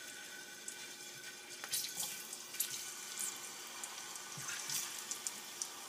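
Cooking oil heating in a ceramic frying pan, giving a faint steady hiss with scattered small crackles as it comes up to frying temperature.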